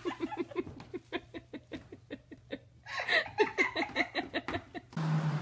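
A person laughing in a rapid run of short breathy bursts, which grows louder and fuller about three seconds in. Near the end it cuts off abruptly and gives way to a steady low hum.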